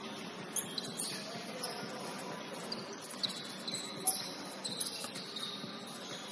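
Basketball sneakers squeaking on a court in short, high chirps, with a couple of sharp knocks, over the low hubbub of the gym.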